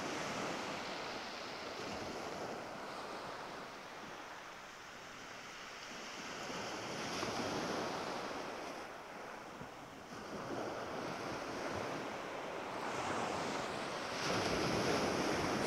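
Surf breaking and washing onto the beach, swelling and easing every few seconds, loudest near the end.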